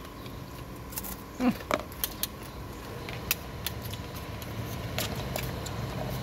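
Metal spoons clicking and scraping against plates and a plastic food container as two people eat, with a low steady rumble underneath that grows toward the end.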